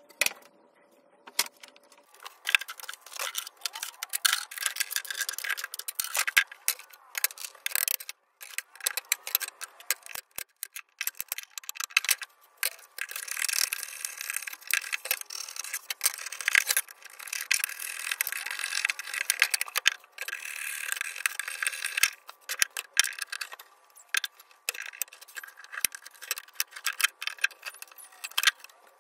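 Hand tools, pliers and a chisel, working a thin pine board on a wooden bench. Irregular sharp clicks and taps go on throughout, with longer stretches of scraping around the middle and again near the end.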